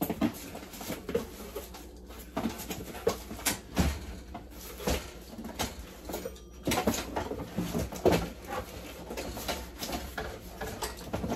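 Cardboard box and its packing being opened and unpacked by hand: irregular rustling, scraping and knocking.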